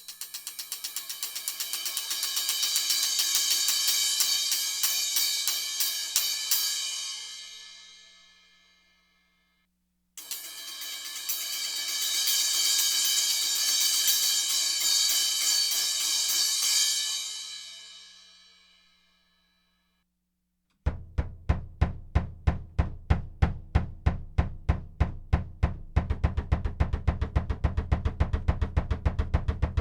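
Two rolls on Evans dB One low-volume cymbals, each swelling up over several seconds and then left to fade away. About 21 seconds in, a low drum fitted with an Evans dB One mesh head is struck in a steady run of about four to five strokes a second.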